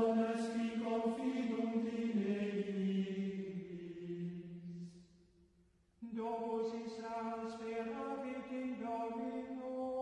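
Sung Latin chant in the style of Gregorian plainchant: a slow melody of long held notes, the first phrase sinking in pitch. It breaks off after about four and a half seconds, and a second phrase starts about six seconds in.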